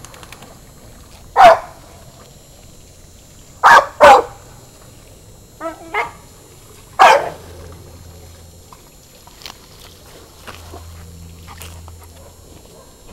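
A dog barking: six short barks in the first seven seconds, four loud ones and two quieter ones close together near the middle, then no more barks.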